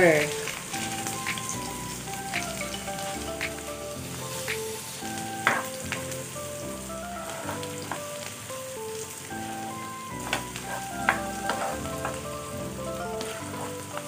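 Chopped onion and garlic sizzling in a non-stick frying pan as a block of butter melts into them, with a plastic spatula stirring and now and then knocking or scraping against the pan.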